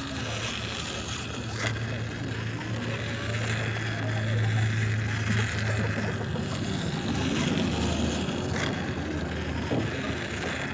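Battery-powered toy train's small electric motor running as it travels along plastic track: a steady hum, louder in the first half, with a few light clicks.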